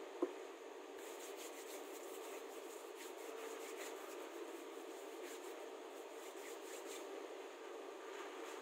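Hands rubbing together to spread hand sanitizer: a run of soft, quick rubbing strokes from about a second in until near the end. A single short knock comes just after the start.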